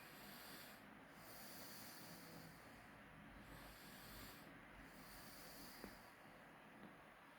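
Near silence: faint breathing close to the microphone, a soft hiss that swells and fades every second or two, with a faint tick about six seconds in.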